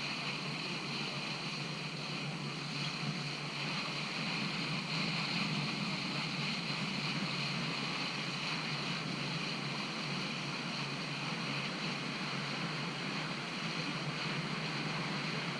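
Boat engine running steadily under way, with water rushing past the hull and wind, heard from on board.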